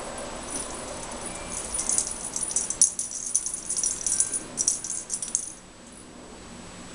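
Orange cat-toy ball with a bell inside, jingling and rattling in quick irregular bursts as a kitten bats it on its string. The jingling stops about five and a half seconds in.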